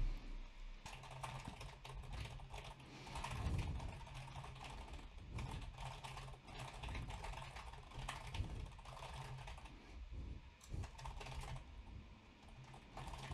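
Faint typing on a computer keyboard: uneven runs of quick keystrokes with short pauses between them.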